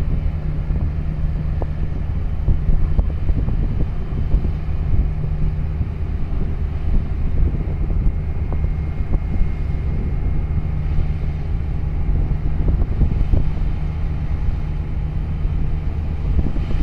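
Boat engine running with a steady low drone, with wind rushing over the microphone and water noise.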